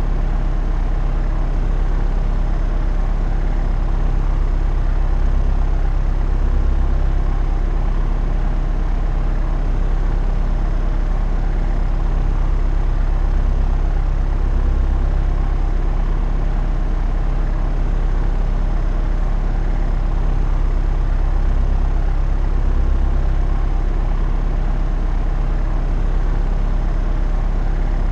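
Propeller airplane in flight: the engine and propeller make a steady, low drone of several unchanging tones, holding an even pitch and level throughout.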